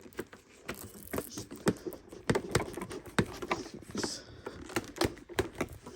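Hard plastic parts of a Bissell Powerforce Turbo upright vacuum being handled, with irregular clicks, knocks and rattles as the hose is pulled out of the machine.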